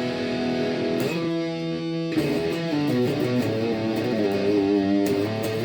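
Washburn T-Bird electric guitar played through overdrive on its bridge pickup, a Power Sustain humbucker: a held chord rings for about a second, then a lick of changing notes follows, with bends and vibrato in the middle.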